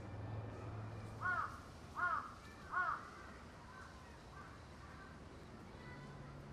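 A crow cawing three times in quick succession, each caw short and rising then falling in pitch, with a few fainter calls just after.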